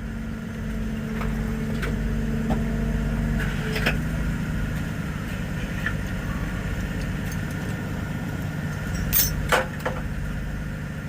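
Vehicle engine idling steadily, with a few sharp knocks about nine seconds in.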